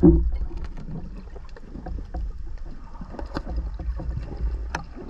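Underwater sound during a breath-hold spearfishing dive: a steady low rumble of moving water with scattered small clicks and crackles, and a louder thump right at the start.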